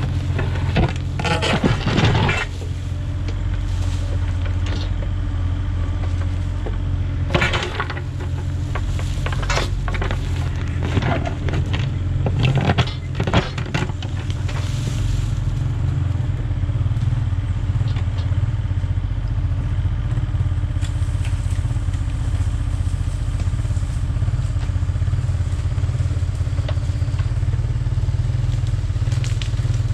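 Compact excavator's diesel engine running steadily while its steel bucket digs and scrapes through soil and stones, with clusters of crunching and scraping in the first half, then mostly the engine alone.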